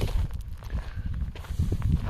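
Footsteps: a few soft steps over a steady low rumble.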